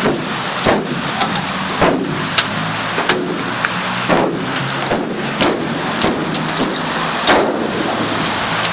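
Heavy rain noise with a steady low hum underneath, broken by sharp knocks roughly every half second to second.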